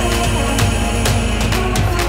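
Electronic dance track with a heavy bass and a steady beat.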